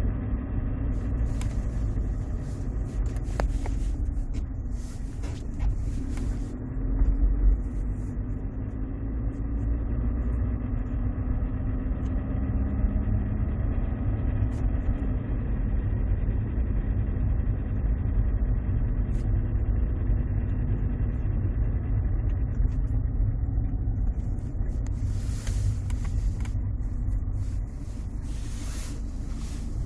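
Mercedes-Benz C200 CDI (W203) four-cylinder diesel engine with its 722.6 automatic gearbox, running and revving up and down, with a strange noise that the owner hears from the gear selector area above about 2000 rpm and is unsure whether it comes from the gearbox or the torque converter.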